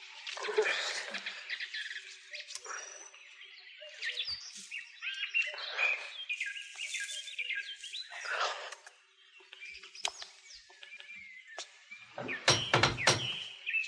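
Garden birds chirping on and off. Near the end come several sharp knocks on a wooden front door.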